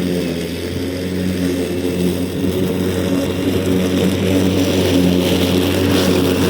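Grator Lowrider slope mower's engine running steadily under load, a constant low hum with a noisy rush over it.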